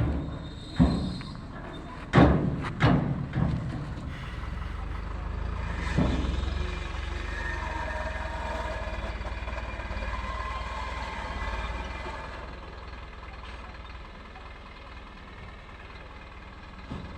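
A few loud knocks in the first few seconds, then a heavy vehicle's engine running with a low rumble that eases off after about twelve seconds.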